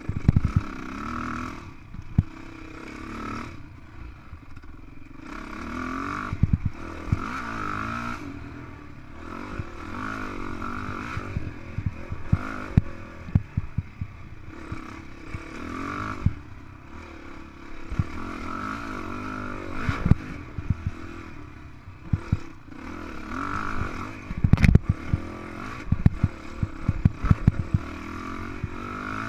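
Honda CRF450X single-cylinder four-stroke dirt bike engine revving up and down under load on a steep climb, with frequent sharp knocks and rattles as the bike goes over rough ground; a cluster of the heaviest knocks comes about two-thirds of the way through.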